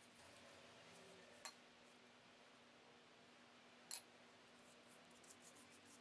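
Near silence: faint room tone with two soft, sharp clicks from handling at the pastry board, one about a second and a half in and another at about four seconds.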